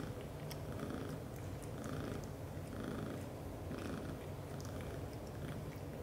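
British shorthair cats purring steadily, with soft wet licking strokes about once a second as one cat grooms the other's head.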